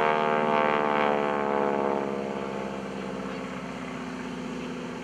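SNJ-5 Texan's nine-cylinder Pratt & Whitney R-1340 radial engine and propeller droning overhead. The pitch and loudness fall over the first couple of seconds as the plane pulls away, then it settles into a steadier, quieter drone.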